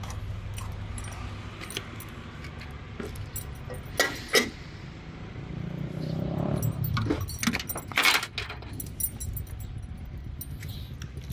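Small metal items jingling and clicking, with sharp clicks about four seconds in and a louder cluster around eight seconds, over the steady low rumble of a vehicle running nearby that swells a little past the middle.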